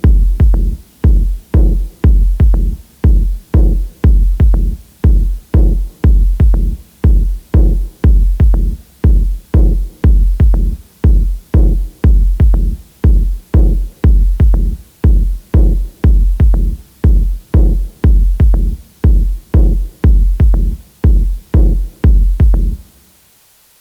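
Instrumental electronic music: a deep drum-machine kick beating steadily about twice a second. It stops about 23 seconds in.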